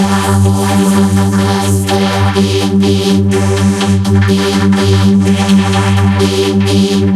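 Loud, steady electronic drone: a sustained synthesizer-like chord with heavy bass that holds without a break, then cuts off abruptly.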